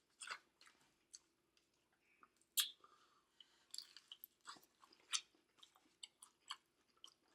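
A person chewing food close to the microphone: soft wet mouth clicks and smacks, with one louder bite about two and a half seconds in.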